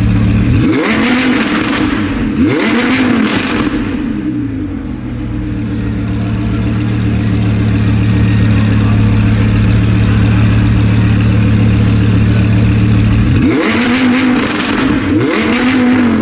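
Audi R8 V10 engine breathing through an Fi aftermarket exhaust: two sharp rev blips about a second in, a steady idle through the middle, then two more rev blips near the end.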